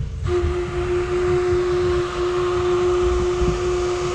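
A long, steady, single-pitched tone with a breathy hiss, starting about a third of a second in and holding one pitch. A fluttering low rumble of wind on the microphone sits underneath.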